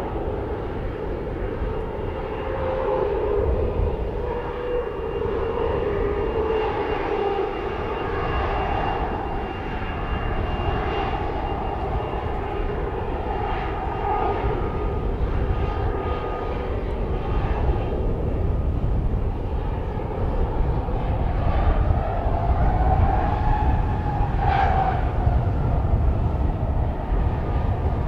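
Bombardier Global 7500 business jet's two GE Passport turbofans running at taxi power as the jet turns on the runway: a steady jet whine with slowly shifting tones over a low rumble, growing a little louder in the last third.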